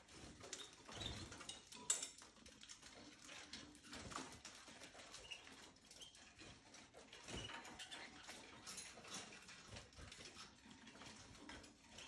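Caged canaries and other small finches moving about, heard faintly: scattered light clicks and scratching as they hop and peck, with a few brief faint chirps and one sharper click about two seconds in.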